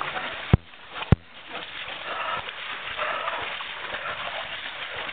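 Footsteps splashing and squelching through wet snow and slushy meltwater, uneven and continuous, with two sharp knocks about half a second and a second in.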